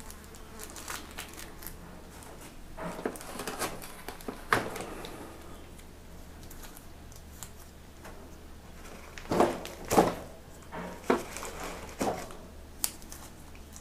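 Hands crinkling and rustling packaging while packing a scent-training sample, with scattered clicks and a few louder knocks and scrapes a little past the middle.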